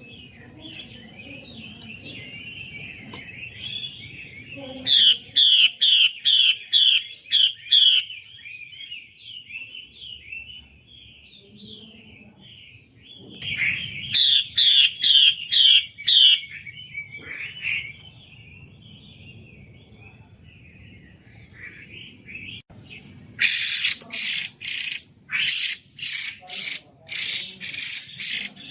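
A Chinese hwamei (melodious laughingthrush), which the uploader calls a female, singing. Soft warbling runs are twice broken by loud, clear repeated whistled notes, about two or three a second. Near the end comes a run of harsher, rasping notes, about two a second.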